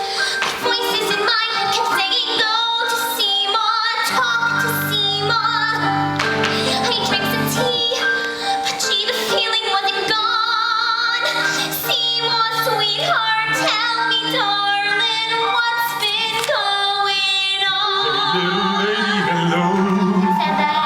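A woman singing a show tune with band accompaniment, her held notes wavering with vibrato.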